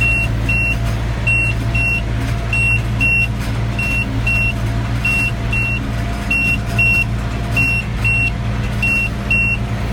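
Round baler's in-cab monitor alarm sounding a high beep in quick pairs, over and over: the bale-full signal. Underneath it, the John Deere 6310 tractor's diesel engine runs steadily under load.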